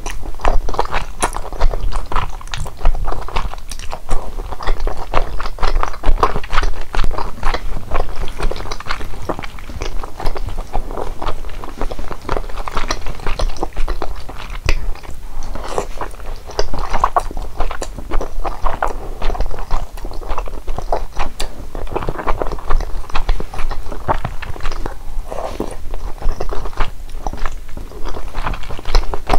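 Close-miked eating sounds of a person chewing and biting into malatang, a dense run of quick clicks and crunches throughout.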